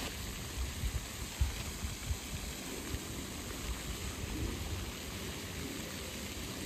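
Wind buffeting the microphone: a steady rushing hiss with irregular low thumps from gusts, strongest in the first couple of seconds.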